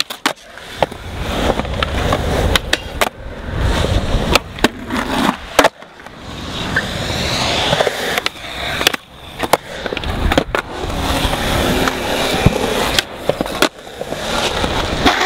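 Skateboard wheels rolling over concrete, swelling and fading as riders pass close, broken by many sharp clacks of the boards snapping, landing and grinding.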